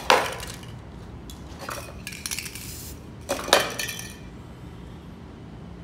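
Metal aerosol spray-paint cans clinking and knocking against each other as they are picked from a crate, in a few short clatters, the loudest about three and a half seconds in.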